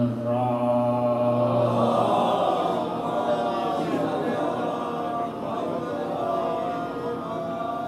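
A man's drawn-out chanted final word of an Arabic invocation, then from about two seconds in a congregation of many voices chanting together in unison as the gathering's response.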